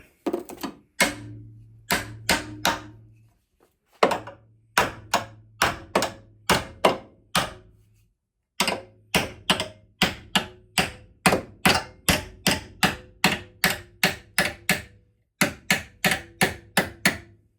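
Repeated hammer blows on a bent metal bracket of a damaged car, about two to three strikes a second in several runs with short pauses, as the bracket is knocked back into shape. A low hum sits under each run of strikes.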